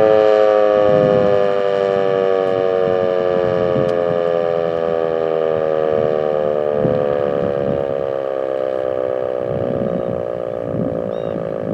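ASC T-121 outdoor warning siren winding down after its steady alert signal. Its chord of tones falls slowly in pitch and fades, with faint low rumbles underneath.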